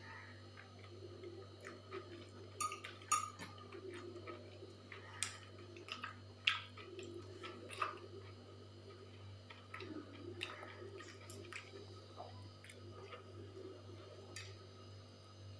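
A person eating: soft chewing with scattered light clicks and taps of dishes and cutlery, the sharpest about three seconds and six and a half seconds in.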